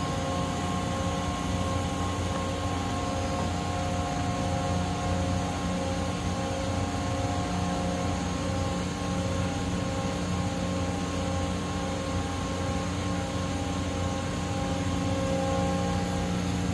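Toshiba MPC-2565A double-column gantry CNC machining centre running: a steady mechanical hum with several steady tones layered over it.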